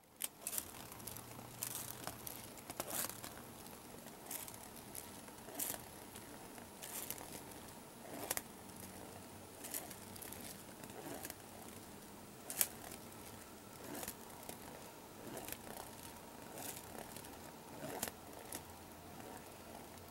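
A small ball rolling and knocking around inside a colander, giving irregular clicks and light rattles.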